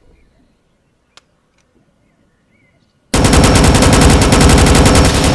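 Near quiet, then about three seconds in a sudden, very loud, rapid rattling burst starts and keeps going without a break.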